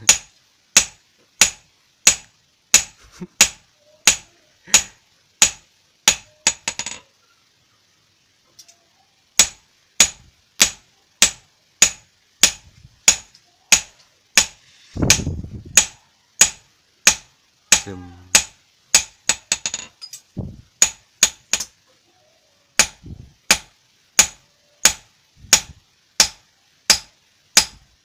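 Hand hammer striking a metal blade laid on a short steel post used as an anvil. It is a steady run of sharp metallic blows, a little over one a second, with a pause of about two seconds near a third of the way in.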